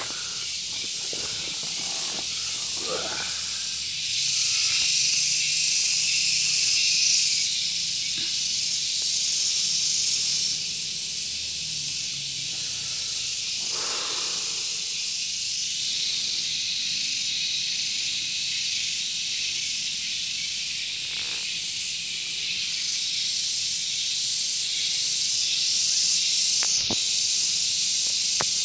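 Insects in the trees buzzing in a dense, high-pitched, steady chorus that swells louder a few seconds in and again near the end.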